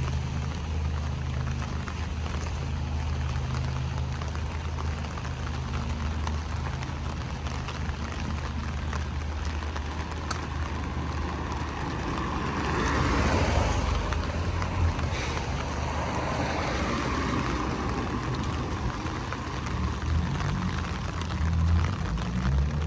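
Light rain hissing steadily over a low traffic hum; about halfway through a vehicle passes on the wet road, the swish of its tyres swelling and fading over a few seconds.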